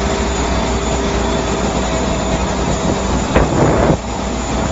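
Steady engine drone with a steady whining tone, from machinery running on an airport apron. About three and a half seconds in a short, louder noise starts sharply and cuts off abruptly.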